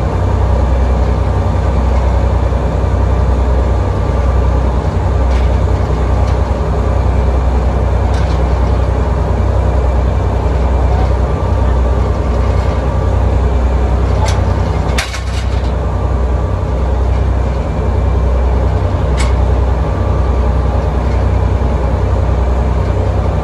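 Tugboat's diesel engines running with a steady, deep drone, with a few sharp knocks midway and one more a few seconds later.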